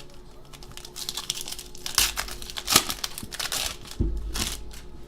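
Trading-card pack wrapper crinkling and cards being handled, with a few sharp clicks and a dull thump about four seconds in.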